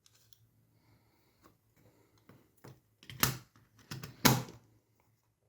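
Small plastic clicks and taps of a battery being fitted into an RF zone remote sensor: a few faint ticks, then two louder clicks about a second apart past the middle.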